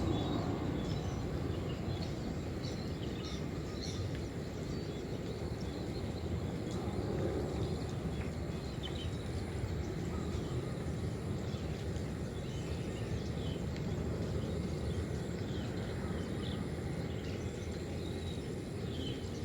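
Outdoor ambience: a steady low rumble of background noise with faint, scattered bird chirps.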